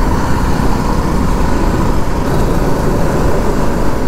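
Steady rush of wind and road noise from a motorcycle moving at road speed, buffeting the rider's microphone.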